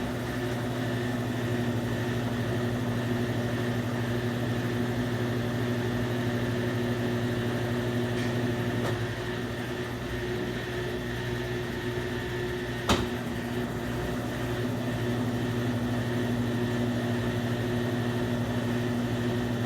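Consul Facilite 10 kg washing machine running its spin cycle: a steady motor hum with several held tones. A single sharp click about 13 seconds in.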